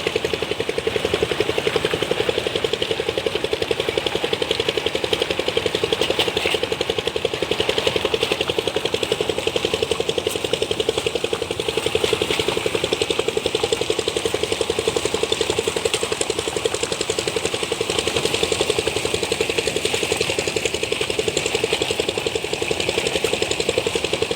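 An engine running steadily at constant speed with a fast, even firing beat.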